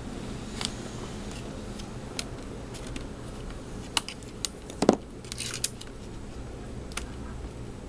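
Small plastic and metal laptop parts being handled and fitted by hand: scattered light clicks, a louder knock near the middle and a short scrape just after it, over a steady low room hum.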